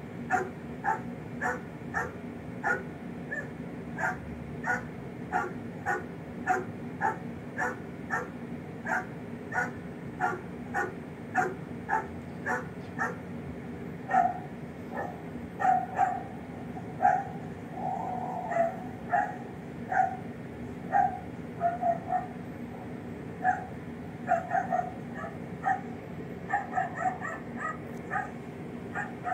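Dog barking over and over, played back from a video on a device's speaker. The barks come evenly, about two a second, through the first half, then turn more irregular, with some longer yelping calls in the second half.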